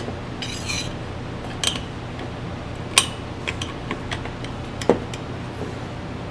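T27 Torx T-handle tightening the cylinder head bolts of a RedMax backpack blower engine in a crisscross pattern: a few sharp metallic clicks and ticks at uneven intervals as the bit seats and the bolts are snugged down. A steady low hum runs underneath.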